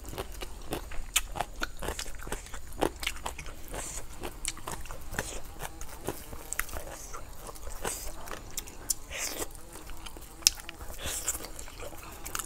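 Close-up eating sounds: irregular wet chewing and mouth clicks with crisp crunches as green papaya salad and grilled chicken are bitten and chewed.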